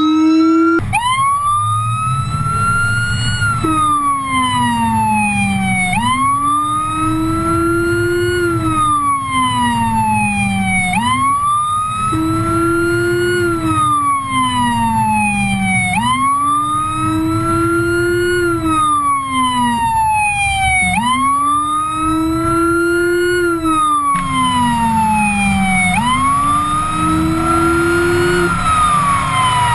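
Police siren on wail, rising and falling about every five seconds, with a Whelen Howler's low-frequency tone sweeping in step well below the main siren tone. Engine and road rumble run underneath, and a rushing hiss joins near the end.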